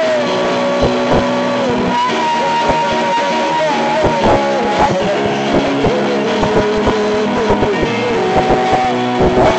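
Worship band music with no singing: a held melody line sliding between notes over sustained chords, with scattered percussion hits.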